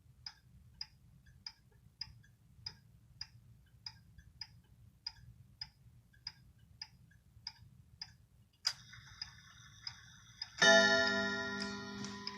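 Heritage 31-day wall clock ticking evenly, a little under two ticks a second, from its pendulum movement. Near nine seconds a click and a light mechanical running start up, and about a second later the coil chime is struck once: a loud ringing gong tone that dies away slowly.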